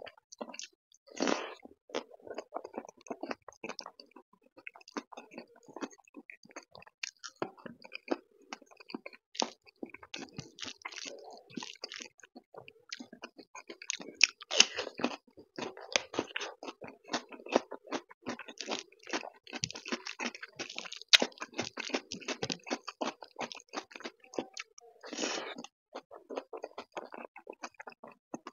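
Close-miked mouth sounds of a person eating dal and rice mixed with crispy fried potato shreds by hand: steady wet chewing with crisp crunching. A few louder crunches stand out, one of them about halfway through, when he bites into a raw cucumber slice.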